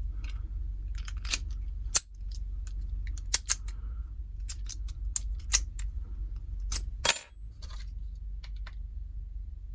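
Scattered small metallic clicks and clinks of a bronze Yale 850 padlock and its key being handled and worked, with a sharper metal clack with a brief ring about seven seconds in.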